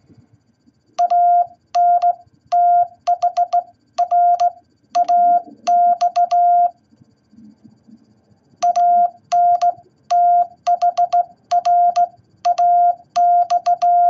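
Morse code sidetone from an MFJ-414 Classroom Morse Tutor keyed by a hand-operated straight key: beeps at one steady pitch in dots and dashes, each starting with a click, spelling out the word 'anthrax'. The word is sent twice, with a pause of about two seconds between.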